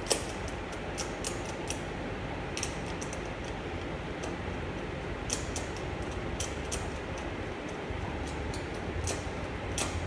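Hand screwdriver turning screws into a swivel caster's metal mounting plate: scattered sharp metal clicks and ticks, the loudest right at the start, over a steady background hiss.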